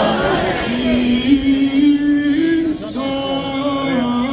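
Voices singing a Greek Orthodox liturgical hymn, holding long notes that step up and down, with a short break between phrases about three seconds in.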